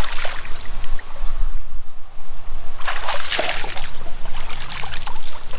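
Water splashing as a weighted line is thrown into the shallow river, with a second burst of splashing about three seconds in as it is hauled back through the weeds and roots.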